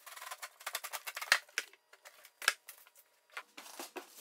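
Cardboard shipping box and plastic wrap being handled and pulled apart: a run of crackles and snaps, with two sharp clicks, one about a second in and one about two and a half seconds in.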